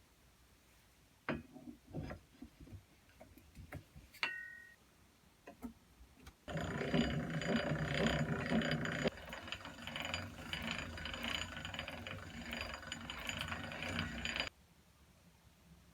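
Bradson No. 5 manual pillar drill being worked by hand: a few scattered clicks and knocks, then about eight seconds of continuous gear and ratchet clatter as it is cranked, stopping suddenly.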